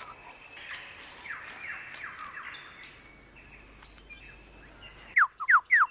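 Birds singing in a forest: a run of short falling chirps, then about four loud, quick downward whistles near the end.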